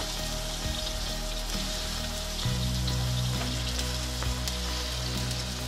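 Chili paste sizzling in hot oil in a wok as it is stirred with a spatula: a steady crackling hiss. Background music with sustained low notes plays underneath, changing about halfway through.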